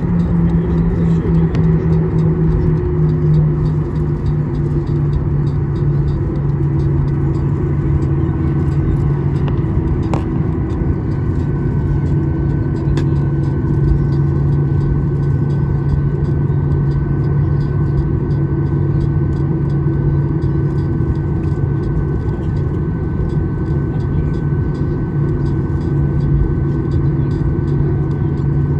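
Boeing 737-800 cabin noise while taxiing: the CFM56-7B turbofans running at low thrust give a steady low hum and rumble, the hum dropping slightly in pitch in the first few seconds. A faint steady whine joins about twelve seconds in.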